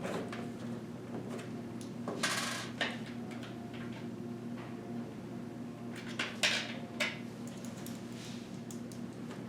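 Hands handling PC parts and their packaging: scattered clicks and knocks and two short rustles, about two seconds in and about six seconds in, over a steady low hum.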